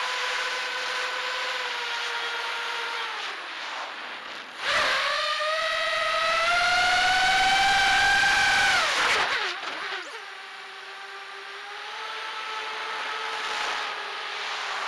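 Racing quadcopter's four 2203 2300kv brushless motors spinning 5-inch tri-blade bullnose props, heard from the camera on the frame as a steady pitched whine. About five seconds in the throttle is punched: the whine jumps much louder and climbs in pitch for about four seconds, then drops back to a lower steady whine that rises a little near the end.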